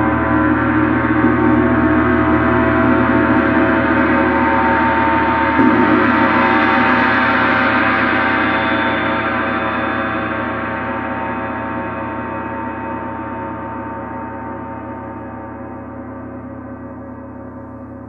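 A 30-inch Paiste Symphonic gong played with a mallet: a dense wash of many ringing tones swells brighter over the first several seconds. The gong is then left to ring, slowly dying away.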